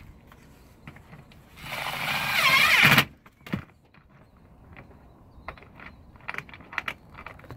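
Cordless impact driver driving a rubber-gasketed sheet-metal screw through a solar mounting bracket into a corrugated metal roof: one burst of about a second that builds in loudness and stops abruptly. Light clicks of screws and bracket being handled follow.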